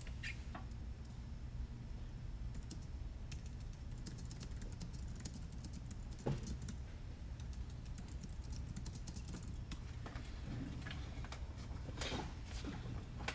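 Faint, scattered light clicking of a computer keyboard being typed on, with one louder knock about six seconds in, over a steady low hum.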